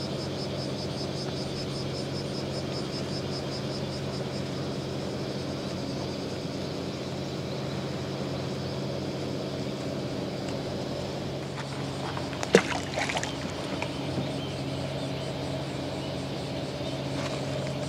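Steady low hum of a boat engine running. About two-thirds of the way in, one sharp knock and a few lighter ticks.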